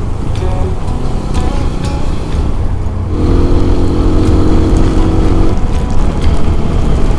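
Motorcycle on the move: wind rumble on the mic over a single-cylinder TVS Apache RTR 200 4V engine. A steady pitched tone with overtones joins in for about two seconds in the middle, then stops.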